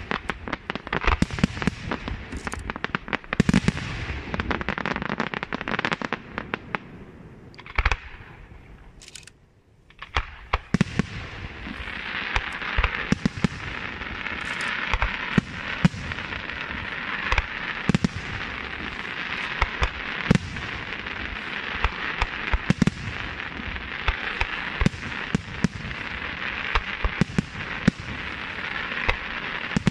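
Aerial fireworks display: shells bursting in quick succession with sharp bangs. About a third of the way in, it dies away almost to quiet for a moment, then resumes as a dense, steady crackle from glittering star shells, with bangs going off over it.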